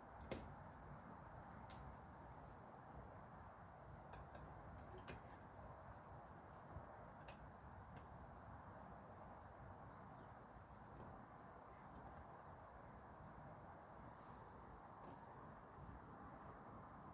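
Near silence with a few short, sharp clicks and taps from a 1939 Royal Quiet De Luxe typewriter's body shell being worked and stretched over the frame. The three clearest clicks come in the first five seconds, with fainter ticks later on.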